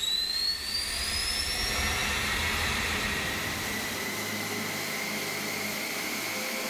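Military jet engine running on a test stand in an enclosed hush house, its turbine whine climbing in pitch over the first two seconds as it spools up, then holding steady over a continuous roar.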